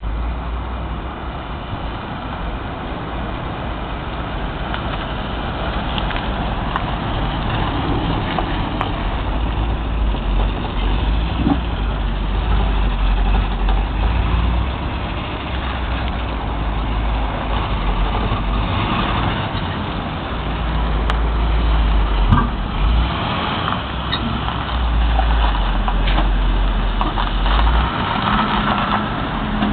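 1959 Cadillac Superior ambulance's 390 V8 running steadily through a newly fitted exhaust system, a continuous low rumble.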